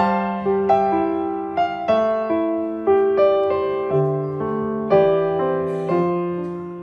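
Background piano music: a slow, gentle melody of single notes and chords, each struck and left to die away, about one or two a second.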